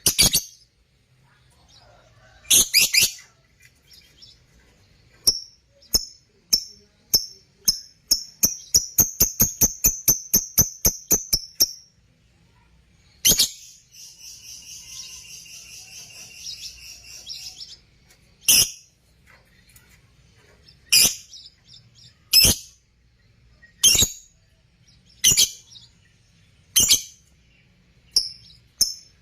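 Lovebirds chirping: sharp, high chirps, a quick run of about five a second near the middle, then a few seconds of continuous chattering, then single loud chirps every second or two.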